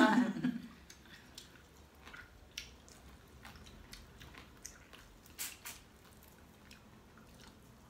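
Faint eating sounds: scattered small clicks and crackles of cooked shellfish being peeled apart by hand, with wet chewing and mouth sounds, a few sharper cracks standing out.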